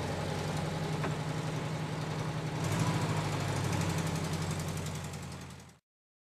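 A car engine idling with a rapid, even pulse, picking up slightly about three seconds in, then fading out shortly before the end.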